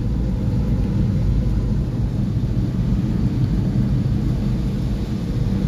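A car's engine and tyres heard from inside the cabin while driving along a wet road, as a steady low noise with no change.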